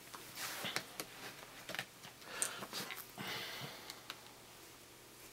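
Faint handling noises from a laptop's screen assembly being worked on: several brief rustling swishes with a few light plastic clicks.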